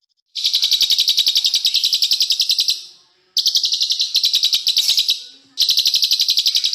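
Small songbird singing fast trills of rapidly repeated high notes, about ten a second, in three bursts with short breaks between them.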